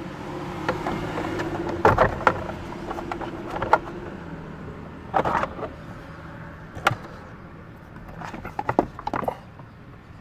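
Plastic steering-column trim cover being pried and worked loose from its clips: a scattered series of sharp plastic clicks and knocks. A low steady hum runs under the first few seconds and then fades.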